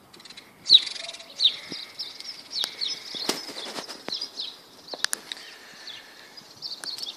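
Small birds chirping, a rapid series of short, high, downward-sliding chirps that keeps going, with a couple of sharp clicks about three and five seconds in.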